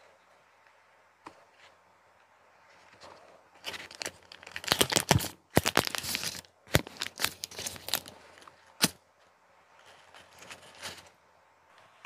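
A paper muffin liner being peeled and torn away from a chocolate muffin: a dense run of crinkling, tearing crackles that starts about four seconds in and lasts about five seconds, then softer rustling of paper.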